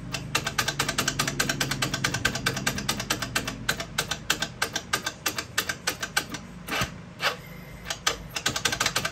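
Electric starter of a Polaris Scrambler 50's small two-stroke engine cranking with a rapid clicking, struggling to turn the engine over because the cylinder is full of oil, with a compression gauge threaded into the spark plug hole. The clicking runs fast for about four seconds, then comes in shorter, broken runs.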